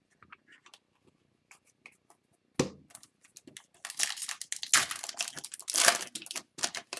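Trading cards being handled: a few light clicks and a knock, then several seconds of crinkling and tearing, typical of a foil card-pack wrapper being torn open and crumpled.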